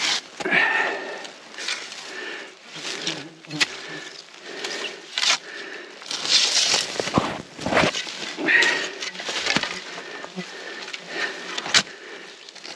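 Footsteps tramping through wet ground and brush, with irregular rustling and a couple of sharp cracks.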